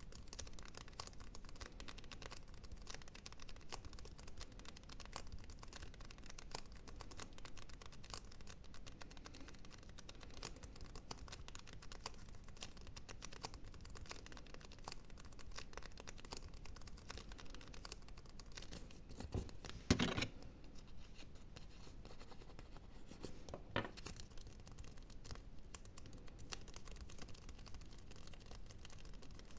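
ASMR scratching and gripping on an object: a dense run of fine scratches and small ticks, with a louder bump about twenty seconds in and a smaller one about four seconds later.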